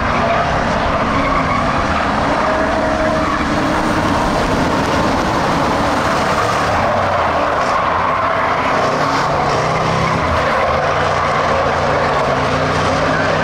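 A pack of Ford Crown Victoria race cars with V8 engines running together around a dirt track, a steady, loud engine drone.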